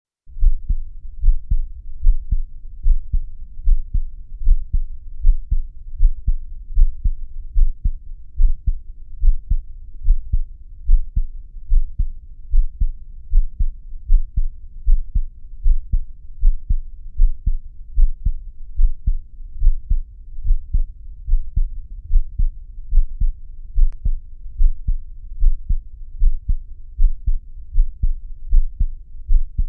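A heartbeat thumping steadily, about one beat a second, each beat a deep double thump.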